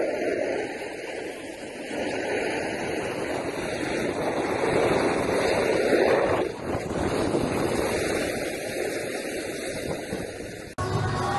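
Wind rushing over the microphone outdoors on a ski slope, a steady noisy roar that swells and dips and cuts off suddenly near the end.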